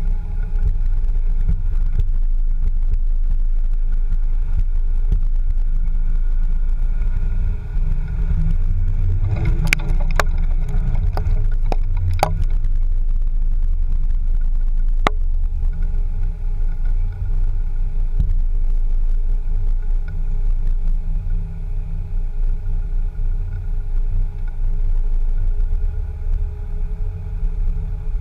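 Land Rover Discovery 2 driving slowly over rough, stony off-road ground: a steady low rumble of engine and tyres, with a run of sharp knocks about ten to twelve seconds in and one more a few seconds later.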